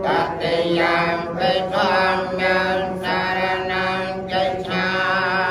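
Theravada Buddhist monks chanting Pali verses together, a continuous recitation in short phrases with brief breaks between them.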